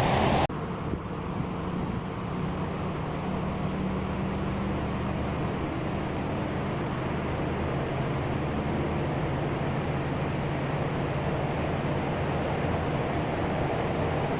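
Steady low hum of distant engine noise, with faint held tones, following a louder rushing noise that cuts off abruptly about half a second in.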